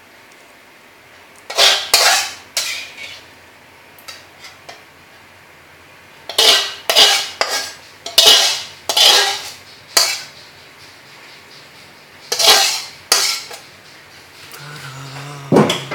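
Dishes and metal utensils clattering and scraping in several short bursts, the longest run of strokes about six to ten seconds in.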